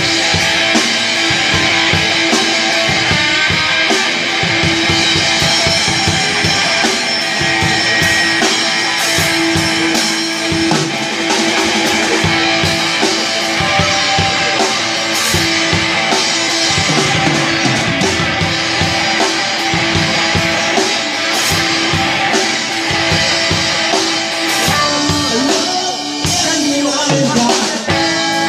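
Live garage rock band: an electric guitar and a drum kit playing loudly and steadily together.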